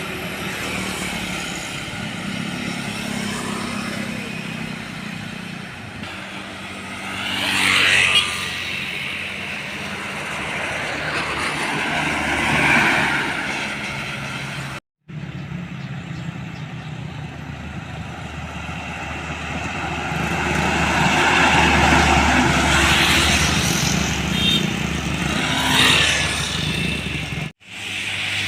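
Road traffic with heavy trucks: engines running steadily as several vehicles pass close by one after another, each pass swelling and fading. The sound breaks off abruptly twice.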